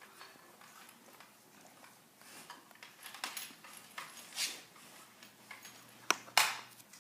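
Dog working a treat toy for treats: scattered light clicks and knocks of the toy, with a sharper click and a louder burst about six seconds in.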